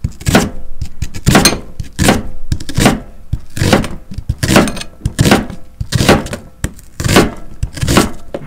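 Kitchen knife slicing a new onion on a cutting board: a steady run of crisp cuts, each ending in a knock of the blade on the board, about one and a half a second.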